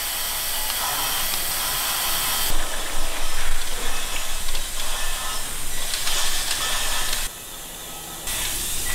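A steady hissing noise, with a short quieter stretch near the end.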